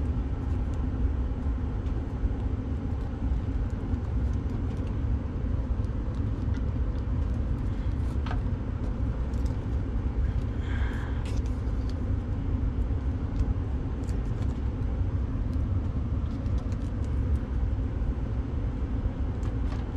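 Steady low mechanical hum, with a few faint clicks from hands working wires onto an electrical outlet's terminals near the middle.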